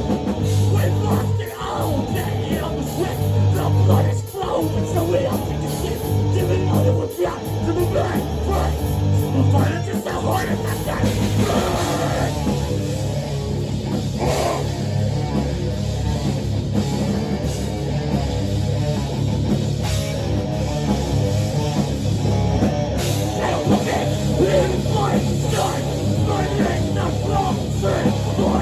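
Live rock band playing a loud, heavy instrumental passage. A low bass line shifts from note to note through the first ten seconds, then settles into a steadier, fuller sound.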